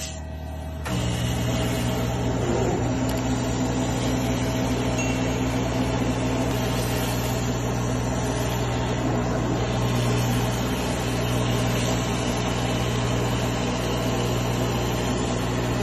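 Gantry laser cutter running as it cuts through a pizza: a steady machine hum from its fans and air assist, stepping up louder about a second in and holding even.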